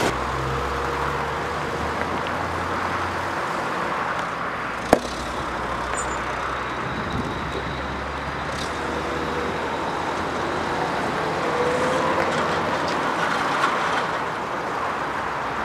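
A motor vehicle's engine running steadily along with road traffic noise, with faint passing vehicles and one sharp click about five seconds in.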